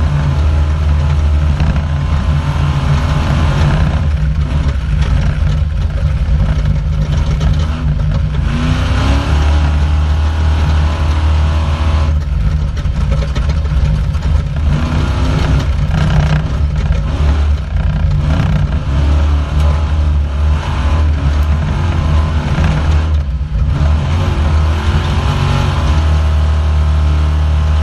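Off-road race car's engine heard from inside the car, running loud under hard throttle. Several brief lifts are each followed by a rising pitch as it revs back up.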